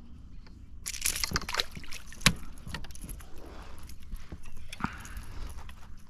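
Fishing tackle being handled on a kayak: rattling and clicking of rod, reel and lure that start about a second in, with one sharp click a little over two seconds in.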